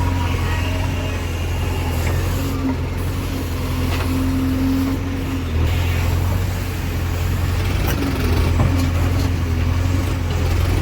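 Heavy diesel engine of a backhoe loader or tractor running steadily, with a deep hum and a pitch that wavers a little as the load changes.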